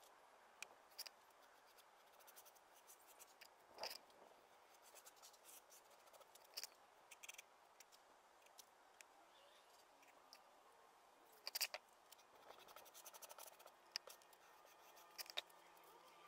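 Hand scraper scratching dried grout off a natural-stone mosaic face in short, irregular strokes, with scattered sharp scratches and clicks, faint overall.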